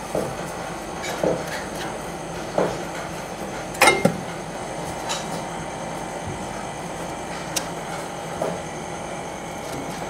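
Compressor running steadily, pumping air into a refrigerator's sealed system toward 100 psi to pressure-test a freshly brazed leak. A few light knocks sound over the hum, the loudest about four seconds in.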